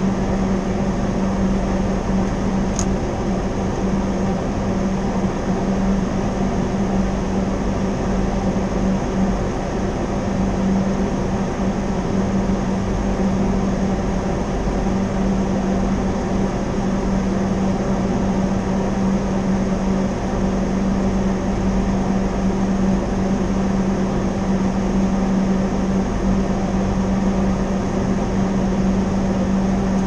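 Reach-in cooler's refrigeration system running: a steady machine hum with one strong low tone, from its fans and compressor.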